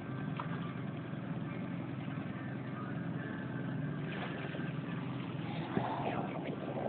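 Boat engine running steadily at low speed, with a single sharp knock about six seconds in.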